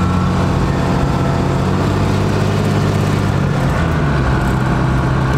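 12-valve Cummins turbo-diesel pickup driving, heard through open windows: a steady engine drone that drops in pitch about three and a half seconds in. A faint high whistle rides over it at the start and again near the end; the driver can't tell whether it is just turbo whistle or a howl from something wrong.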